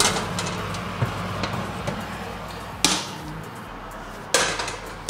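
A metal baking tray being pulled out of the oven across the wire rack: about four sudden scraping clatters, each fading over about half a second, over a steady low hum.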